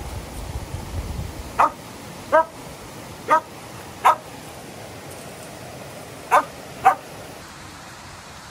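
A dog barking in six sharp single barks, spaced unevenly, over the steady rush of a fast-flowing river.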